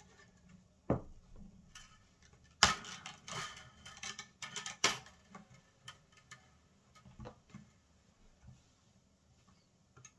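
Scattered clicks, taps and light rattles of hands working an electric guitar's strings and hardware during restringing, with one knock about a second in and the loudest, densest run of clicks between about two and a half and five seconds in.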